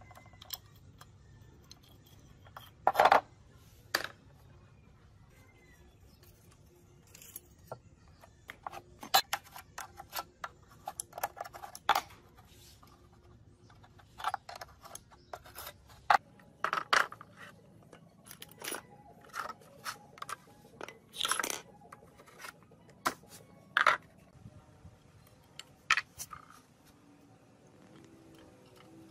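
Metal engine parts and hand tools clinking and scraping as a small four-stroke petrol water-pump engine is taken apart: irregular sharp knocks and short scrapes with quiet gaps between, the loudest about three seconds in.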